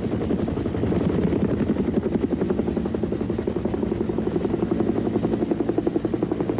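Helicopter in flight, its rotor beating in a fast, steady rhythm over a low, continuous engine drone.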